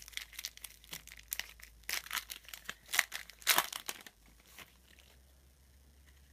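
Crinkling and rustling of a trading-card pack wrapper and cards being handled, in irregular crackly bursts that stop about four seconds in.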